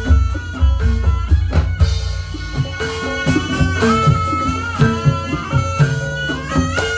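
Javanese barongan dance accompaniment music: a reedy wind instrument playing a wavering, ornamented melody over heavy, steady drumming.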